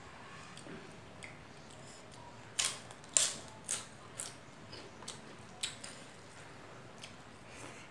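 Eating rice and chicken curry by hand: a run of about seven sharp clicks in quick succession, starting about two and a half seconds in, the loudest just after three seconds.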